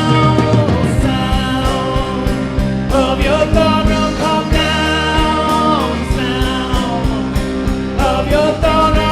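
Live worship band playing a rock-style song, with a steady drum beat, guitar and held, sung or played melody lines.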